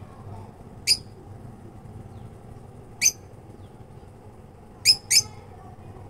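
Caged lovebirds giving four short, sharp, high chirps, the last two in quick succession, over a steady low background hum.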